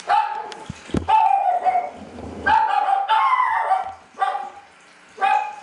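Recorded dog barks and yelps played through a phone's loudspeaker: about five short, pitched calls in a row, each dropping slightly in pitch, with a pause just before the end.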